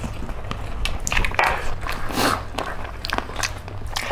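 Close-up eating sounds: chicken feet bitten and chewed by hand, many short crackly clicks with a couple of longer noisy smacks.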